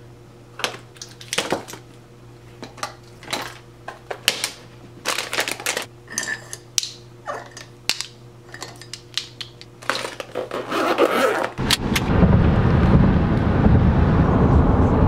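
Zippered toiletry pouches and packets handled and packed on a hard counter: a string of short clicks, rustles and light knocks over a steady low hum. About twelve seconds in, this gives way to steady road noise inside a moving car.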